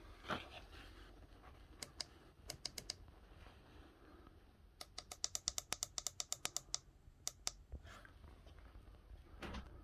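Sharp plastic clicks from the push buttons of an Oxford heated-grips control switch. A few single clicks come first, then a fast even run of about twenty clicks in two seconds, then two more. There is a rustle of handling near the start and another near the end.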